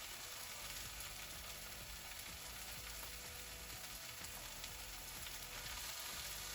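Vegetable omelette of plant-based liquid egg substitute frying in oil in a non-stick pan, a steady faint sizzle as it sets before flipping.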